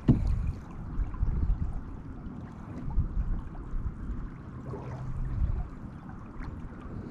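Water lapping and gurgling against a kayak's hull, with wind rumbling on the microphone.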